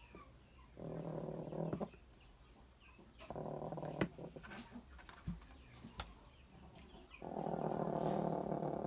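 Broody hen growling on the nest: three low, drawn-out growls, the last and longest running about three seconds, with a few short clicks between them. It is the warning growl a sitting hen gives to guard her nest.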